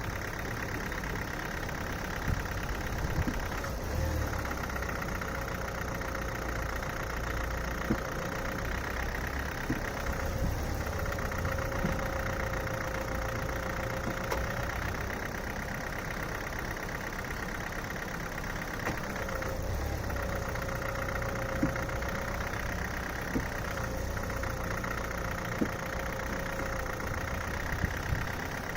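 Hyundai/Kia G4FC 1.6-litre four-cylinder petrol engine running with a knock, heard as sharp ticks every few seconds over the steady running. The low running note swells for several seconds at a time, three times.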